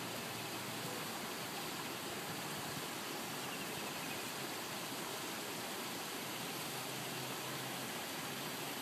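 Steady hiss and splashing of a pond aerator fountain spraying a jet of water onto the pond surface.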